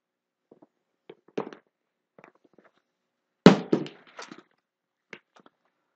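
A small boxed item set down inside an empty cardboard shipping box with one sharp thunk a little past halfway, the loudest sound, with lighter knocks and handling noises before and after it.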